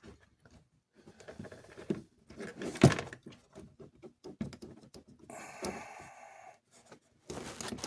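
Small clicks and taps of metal parts being handled and pushed back into a toy train locomotive's motor truck, with a louder click about three seconds in and a brief rasping, scraping noise a little past halfway.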